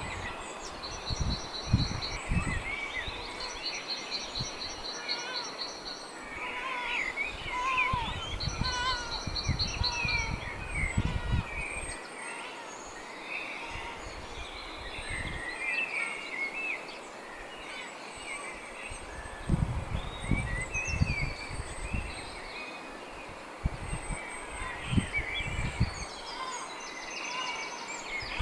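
Small songbirds singing and chirping, with a rapid trill repeated several times in the first ten seconds. Underneath are low rumbles and thumps that come and go.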